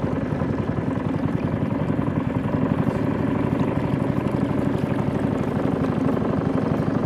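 Small river boat's motor running steadily under way, with an even, rapid pulsing beat.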